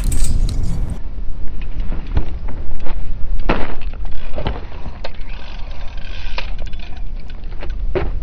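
Wind buffeting the microphone in a loud, steady low rumble, with a few scattered knocks and clicks.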